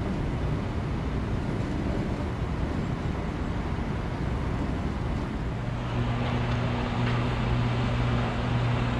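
Mobile crane's engine running with a low rumble. About five and a half seconds in it settles into a steadier, stronger drone as the crane takes up the load to hoist.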